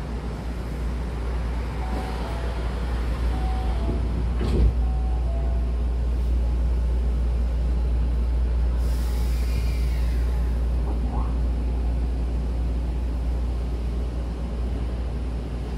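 Hankyu Kobe Line train's double sliding doors closing, with short chime tones before a thud as they shut about four and a half seconds in. The train's running noise then rises steadily as it pulls away.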